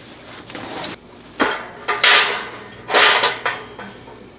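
Metal parts of a small folding fire pit clinking and clattering as they are handled, in three or four short bursts.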